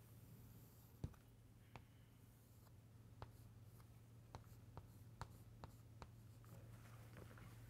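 Chalk on a chalkboard: faint scratching and about eight sharp taps as lines, a curved branch and arrowheads are drawn, the loudest tap about a second in. A steady low hum runs underneath.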